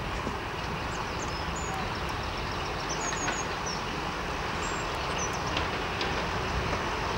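A Class 35 Hymek diesel-hydraulic locomotive's Maybach MD870 engine running as the locomotive moves away along the track: a steady, low rumble. A few faint high chirps sound above it in the middle.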